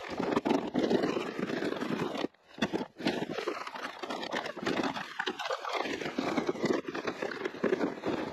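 An ice-fishing sled being towed over snow on lake ice, scraping and crunching under the camera, with crunching footsteps in snow. The noise cuts out briefly a little over two seconds in, then carries on.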